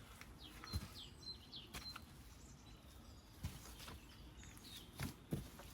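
Small birds chirping, short high chirps repeated in the first couple of seconds and again later, with a few soft knocks scattered through.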